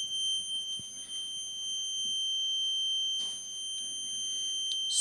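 Kidde 10-year sealed lithium smoke alarm sounding one steady, unbroken high-pitched tone. The alarm has failed and is stuck in constant alarm, and cleaning it as the maker directs has not cleared it.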